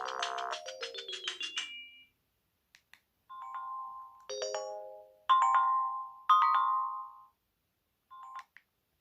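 A BenQ Siemens AL21 mobile phone's speaker playing ringtones. A fast polyphonic ringtone melody ends about two seconds in. After a short pause come four separate short electronic tones, each about a second long, then a brief blip near the end.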